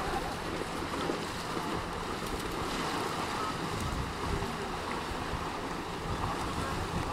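Wind rumbling on the microphone over a steady wash of river water, with no single event standing out.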